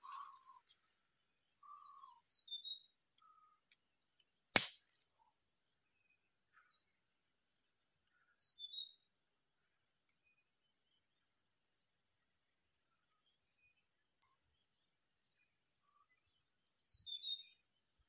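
Forest ambience: a steady high-pitched insect drone throughout, with scattered short bird chirps and one sharp click about four and a half seconds in.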